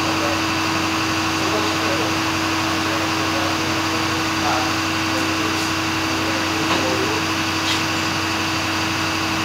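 Steady machine hum of running shop equipment: an unchanging pitched tone over a lower drone and an even rushing noise.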